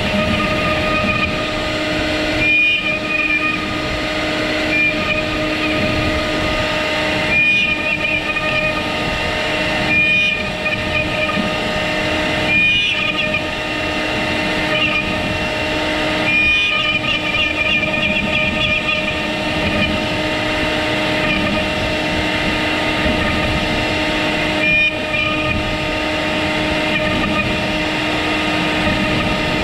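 Avid CNC router spindle running with its bit V-carving into a hardwood board: a steady pitched whine over a cutting hiss, with a higher note flaring briefly every few seconds.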